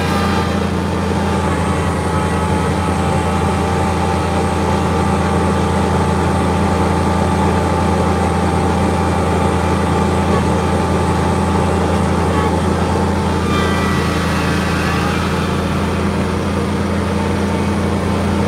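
Kubota BX23S compact tractor's three-cylinder diesel engine running steadily, driving its front-mounted snowblower, heard from inside the tractor's cab.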